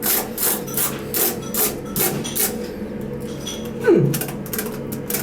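Rhythmic scrubbing strokes on a wet laptop keyboard, about three a second, stopping after about two and a half seconds; a short falling squeak follows about four seconds in, then light clicks.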